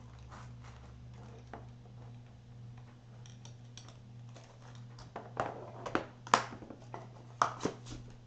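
Hands handling a clear plastic adapter case and its cardboard box on a wooden table: light clicks and rustles, then a run of louder plastic clicks and knocks in the second half, over a steady low hum.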